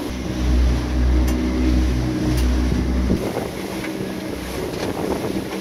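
A boat's engine running steadily, with wind buffeting the microphone for the first three seconds, then dropping away.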